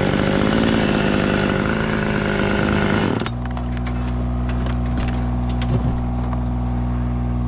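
Chainsaw running at full throttle through a cut, which cuts off abruptly about three seconds in. A steady low engine drone carries on, with a few light clicks.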